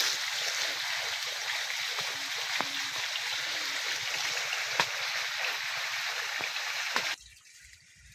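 Irrigation water pumped through a pipe flowing into a maize field: a steady rush of running water that cuts off abruptly about seven seconds in.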